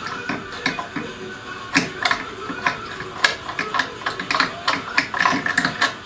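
Ratchet wrench clicking in short runs, a few clicks a second, as bolts are undone on a petrol water pump.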